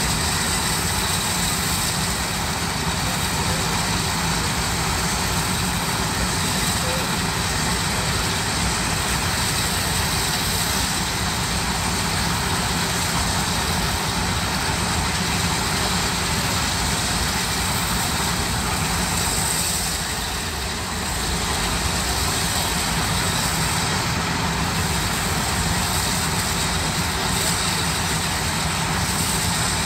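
Steam shovels working for a spark show, a steady unbroken rumble with hiss over it that eases slightly about two-thirds of the way through.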